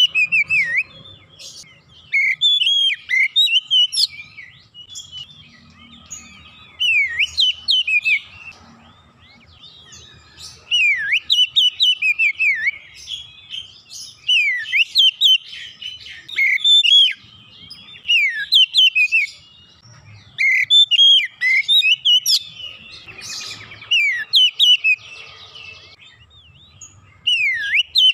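Oriental magpie-robin (kacer) singing in full song: loud bursts of varied, rapid whistles with sharp up-and-down pitch sweeps, in phrases a second or two long separated by short pauses.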